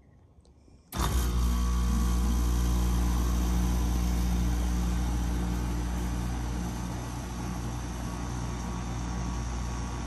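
2004 Goodman PHKJ042 3.5-ton packaged heat pump starting up in cool mode: about a second in it kicks on suddenly and runs with a loud, steady low hum and a rush of air noise above it. The level eases a little a few seconds later as it settles into running.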